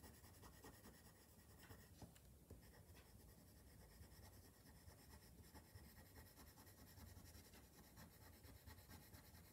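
Faint scratching of a black coloured pencil on paper as fur strokes are drawn.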